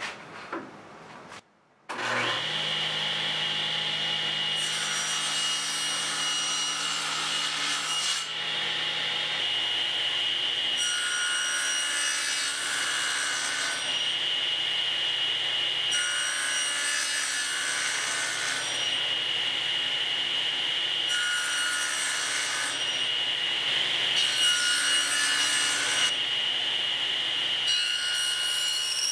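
Table saw running with a steady whine, its blade cutting into pine 2x4 stock in about six separate passes a few seconds apart, each pass adding a harsher cutting noise: repeated shallow cuts that hog out the waste for half-lap joints. The saw's sound comes in about two seconds in.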